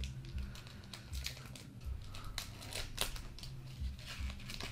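Foil trading-card booster pack being torn open and crinkled by hand: a run of irregular, faint crackles and rustles, the sharpest about three seconds in.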